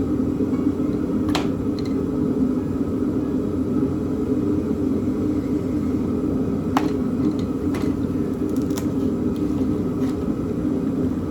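Steady low machine hum, like a fan or air conditioner running, with about five light clicks spread through it as the new headers and their packaging are handled.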